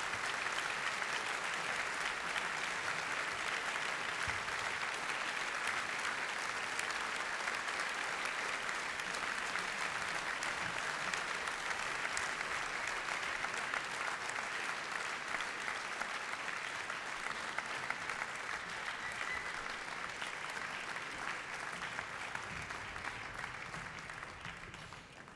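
Concert audience applauding steadily at the close of an orchestral performance, the clapping easing off slightly near the end.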